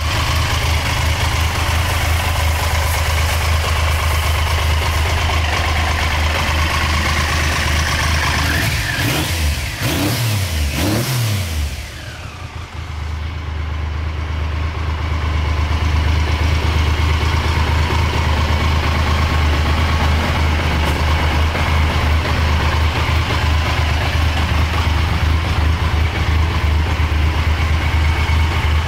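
Triumph Trident 750's inline three-cylinder engine idling steadily, with a few quick blips of the throttle about ten seconds in, the revs rising and falling, then a brief dip before it settles back to idle.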